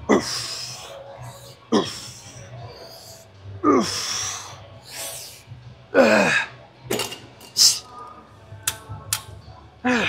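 A man grunting and forcefully exhaling as he strains through heavy repetitions, about five loud grunts that each drop in pitch, spaced a couple of seconds apart, with a few sharp clicks between them. This is the effort of the last reps of a drop set of reverse flyes.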